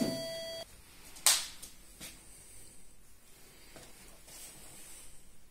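The end of a two-note electronic doorbell chime, its lower second note dying away within the first second. About a second later a short sharp knock or rustle comes, then a fainter click, over quiet room tone.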